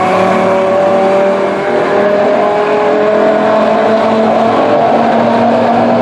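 East Broad Top narrow-gauge train, the M7 and its passenger coaches, rolling slowly past. A steady drone of several tones slowly drifts in pitch over the rumble of wheels on rail.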